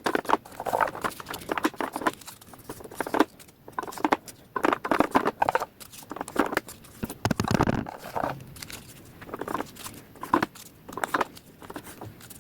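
Rapid, irregular plastic clicks and rustles of foam darts being pushed one after another into a Nerf blaster's clip-together dart belt.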